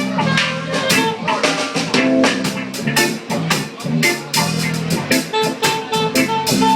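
Live band playing an instrumental passage between sung lines, with drum kit and guitar over held chords and frequent drum strikes.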